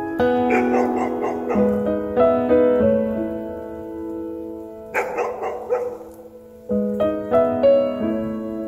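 Instrumental background music led by piano, with sustained notes changing every half-second or so.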